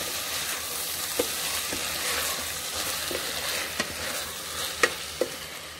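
Chopped tomatoes, peas and onions sizzling in the stainless-steel inner pot of an Instant Pot on sauté while a plastic spatula stirs them. A few sharp clicks of the spatula against the pot, the loudest nearly five seconds in.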